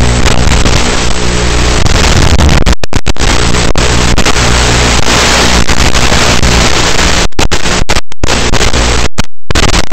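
Loud, harsh static hiss with a steady low buzz underneath, cutting out abruptly to silence several times: the noise-only audio of an analog FPV video receiver recording.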